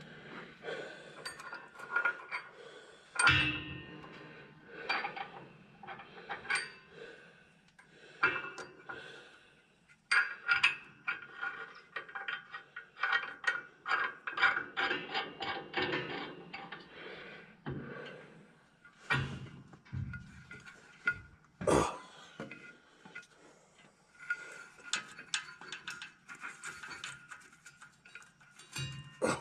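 A steel bolt and hand tools clinking and tapping against the steel of a grain drill's fill-auger mount as the bolt is worked into its hole: irregular small clicks throughout, with a few heavier knocks about 3 seconds in and again around 19 to 22 seconds.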